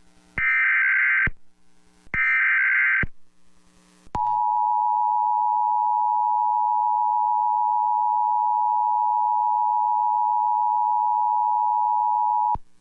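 Emergency Alert System tones. Two short data bursts of the SAME header, about a second each, are followed by the steady two-tone EAS attention signal, which holds for about eight seconds and cuts off sharply. The tones open a National Weather Service severe thunderstorm warning.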